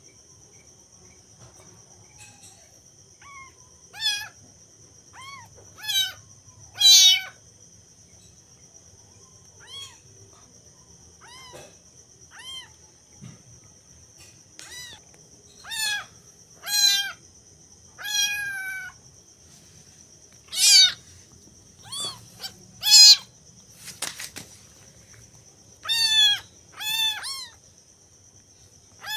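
Young kittens meowing over and over, short high mews that rise and fall in pitch, every second or so, some of them loud.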